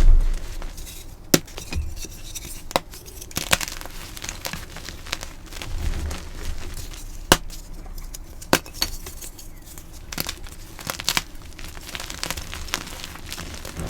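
Blocks of gym chalk being crushed, crunching and crackling with sharp cracks at irregular moments. A heavy low thump comes right at the start.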